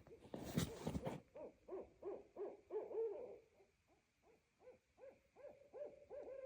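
Owls hooting back and forth: a rapid series of hoots, about three a second, at two overlapping pitches, ending in a falling note near the end. Brief rustling in the first second.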